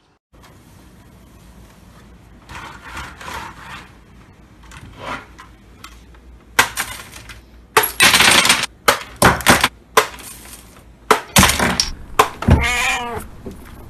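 A series of loud sharp crashes and impacts, like something breaking, starting about six and a half seconds in and coming thickest around eight to twelve seconds. A short wavering pitched sound follows near the end.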